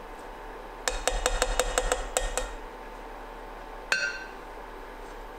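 Stainless steel saucepan clinking and ringing in a quick run of about ten knocks as thick pastry cream is stirred in it with a spatula. One sharper metallic clink comes about four seconds in, over a faint steady hum.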